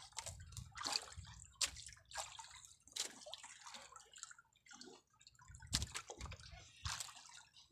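Sea water sloshing and slapping against the hull of a small outrigger boat in irregular splashes.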